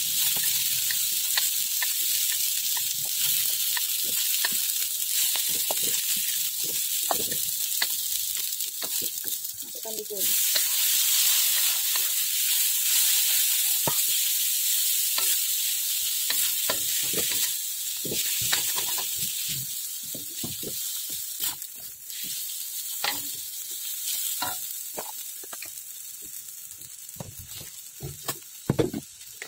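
Oil sizzling in a steel wok while a wooden spatula stirs and scrapes, knocking against the pan again and again: rice vermicelli being stir-fried. The sizzle gets louder about ten seconds in and fades toward the end.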